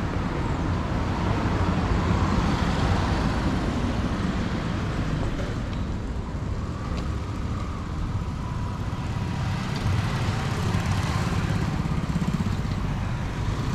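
Road traffic: motor vehicles running and passing by, with the sound swelling a couple of seconds in and again about ten seconds in.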